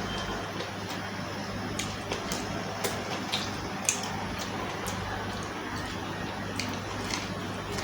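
Close-miked eating: wet chewing and mouth smacks with about eight sharp clicks spread through, the loudest about four seconds in, over a steady low hum.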